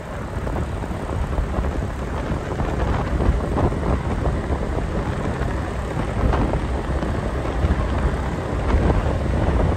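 Wind buffeting the microphone while riding along a road: a heavy, gusting low rumble, with vehicle and traffic noise underneath.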